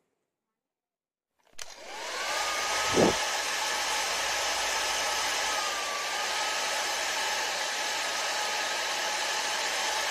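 A miniature toy mixer grinder's small electric motor is switched on with a click about a second and a half in, whines up to speed and then runs steadily, blending pomegranate seeds and water into juice. There is a brief thump about three seconds in.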